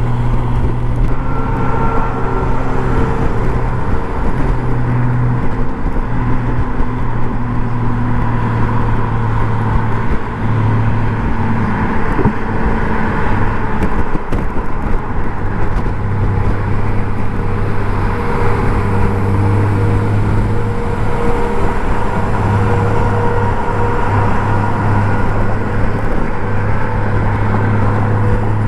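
Honda Gold Wing's flat-six engine running under way, with a steady hum that steps up and down slightly in pitch a few times, over constant wind and road noise.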